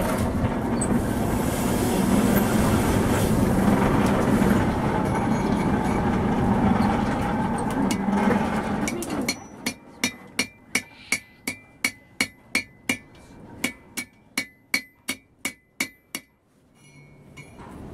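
A steady loud rushing noise with a low hum, then a hand hammer striking iron bar stock on a steel anvil, about three blows a second with a high ring, twenty or so blows that stop shortly before the end.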